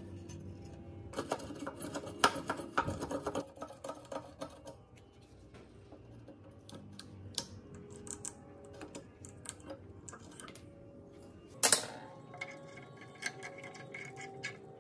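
Rusty metal machine parts handled and taken apart by hand: a run of sharp clinks and rattles about a second in, scattered clicks after, and one louder metal clank near the end.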